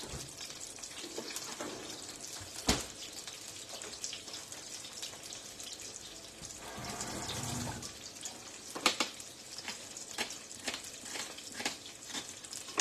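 Kitchen prep sounds: a steady hiss with scattered clicks and knocks of utensils, a sharper knock about three seconds in, and a run of knife taps on a wooden chopping board toward the end.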